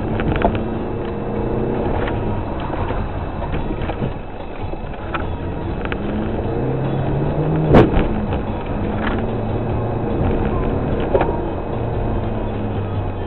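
Rally car engine heard from inside the cabin, revving up and falling back again and again through gear changes, with scattered clicks and knocks and one sharp bang just under eight seconds in.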